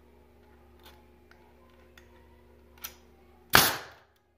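MTX pneumatic pin nailer firing once, a sharp burst about three and a half seconds in, after a few faint clicks. The nailer was not rested squarely on the hardwood, so the 40 mm pin failed to drive in and struck off with a spark.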